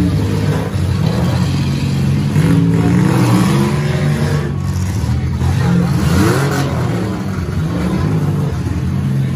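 Several demolition derby cars' engines running at once, with repeated revving rising and falling in pitch as the cars accelerate around the dirt arena.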